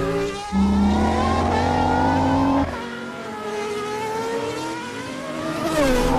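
Race car engines at high revs: a loud engine note climbs steadily in pitch for about two seconds and cuts off, then softer engine notes glide up and down, with a falling pitch near the end as a car passes.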